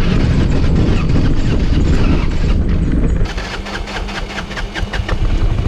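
Motorbike running along a rough dirt road, with wind buffeting the mounted camera's microphone. About three seconds in the wind noise drops and a run of quick rattling clicks comes through.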